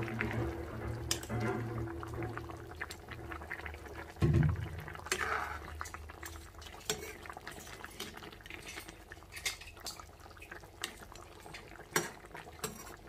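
Fish curry simmering and bubbling in a metal kadai while a steel ladle stirs it, with sharp clicks now and then as the ladle touches the pan. A dull thump comes about four seconds in.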